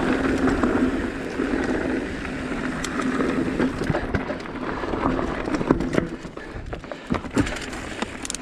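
Mountain bike rolling along a rocky trail: steady tyre noise, with the bike rattling and knocking over rocks and roots, the knocks coming thick from about three seconds in and the whole growing a little quieter near the end.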